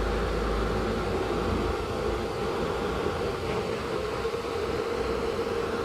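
Small computer fan of a homemade USB air cooler running steadily, a constant whir with rushing air.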